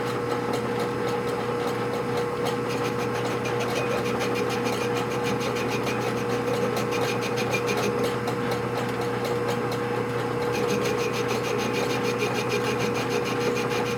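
Metal lathe running with a steady whine from its spindle drive, over a fine, fast rasping from the cutting tool taking a light cut on the work.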